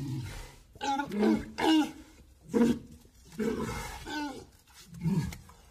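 Walruses vocalizing: a series of short, pitched calls that bend up and down in pitch, about seven in quick succession with brief pauses between.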